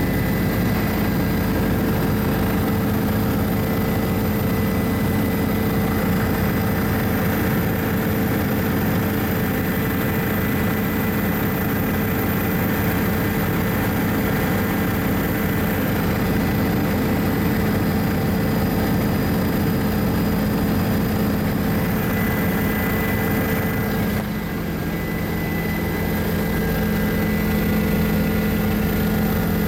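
Helicopter in flight heard from on board: a loud, steady drone of engine and rotor with several constant tones, including a high whine. About 24 seconds in, the level dips briefly and the lowest tones shift down slightly.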